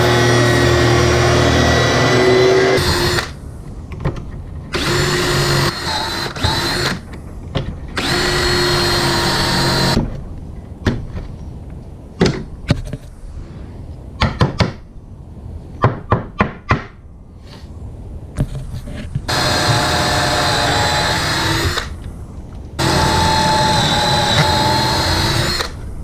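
A portable table saw runs and cuts a small piece of wood for about three seconds; then a cordless drill bores pocket holes through a plastic pocket-hole jig in several short runs, with sharp clicks and knocks of the jig and clamp being handled between them and two longer drill runs near the end.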